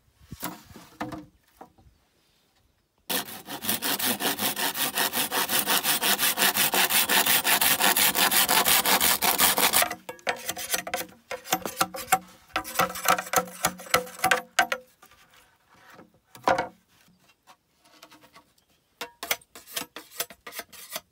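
Hand saw cutting through a green bamboo pole: fast, steady back-and-forth strokes for about seven seconds, starting a few seconds in, then slower, uneven strokes. A few sharp knocks near the end.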